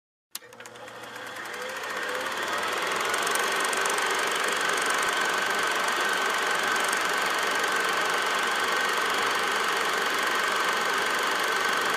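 Film projector sound effect: a click, then the projector motor whirring up to speed over about three seconds and running steadily with a thin, steady high whine.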